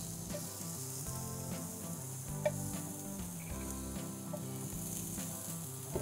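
Scallops sizzling steadily as they sear in a hot, smoking frying pan with a little oil. There is one sharp tap about two and a half seconds in.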